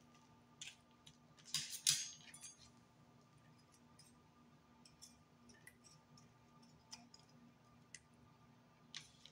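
Metal tongs clicking and tapping against a slow cooker's crock while cube steaks are pushed into thick gravy. A cluster of louder clicks comes about two seconds in, with scattered faint ticks after and one more near the end.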